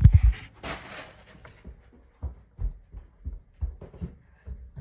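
A loud knock of the phone being set down and a short rustle, then soft low thuds about twice a second: footsteps walking away.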